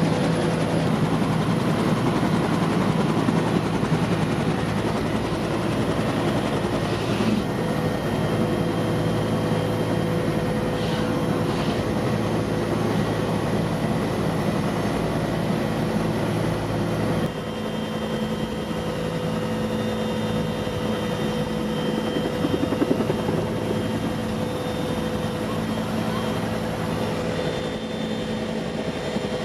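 Helicopter running, a dense steady rotor and engine sound with a constant hum; it drops a little and changes character about two-thirds of the way through.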